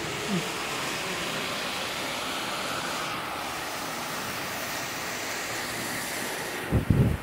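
Indoor fountain water splashing steadily over a rock into its basin, an even rushing hiss. A few loud low thumps near the end.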